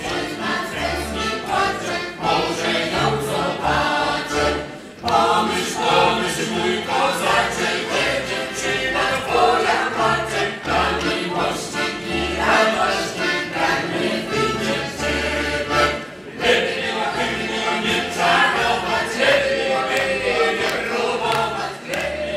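A mixed folk choir singing live, accompanied by two piano accordions and a large balalaika, with bass notes repeating underneath. The sound dips briefly about five seconds in and again about sixteen seconds in.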